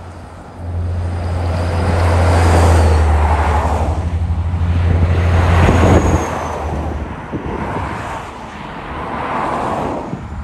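Road traffic passing on a highway, its noise swelling and fading three times. A deep, heavy engine rumble runs through the first six seconds and cuts off sharply.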